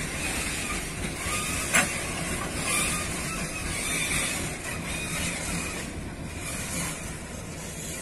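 Loaded freight train's boxcars rolling past, a steady rumble and hiss of steel wheels on rail with thin squealing tones that come and go. One sharp clank about two seconds in.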